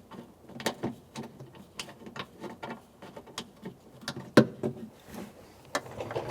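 Irregular clicks and knocks of hand tools and metal parts being handled inside a car door, with one sharper knock about four and a half seconds in.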